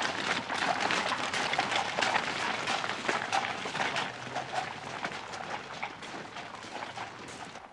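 A horse's hooves and carriage wheels crunching over gravel as a horse-drawn carriage moves off, with many small irregular crunches that grow quieter toward the end.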